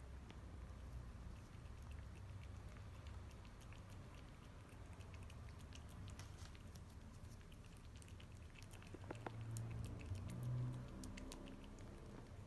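A British Shorthair kitten licking a creamy lickable treat from a squeeze tube: faint, quick wet clicks of the tongue over a low steady hum, with a brief louder low hum about ten seconds in.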